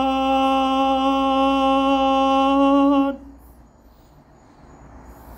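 A singing voice holding one long, steady final note of a song, with slight waver, that cuts off about three seconds in, leaving faint hiss.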